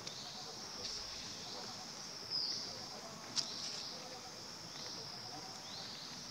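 Steady high-pitched insect chorus, with a short chirp a little past two seconds in and a sharp click about a second later.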